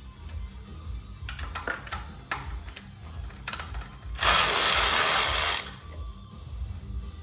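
A power tool runs once for about a second and a half, driving in a bolt on the motorcycle's exhaust hanger, among scattered clicks and clinks of hand tools and hardware. Background music plays underneath.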